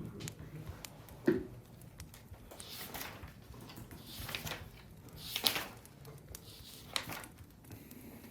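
A sharp knock about a second in, then four short rustling or breathy bursts a second or so apart, over a low steady hum.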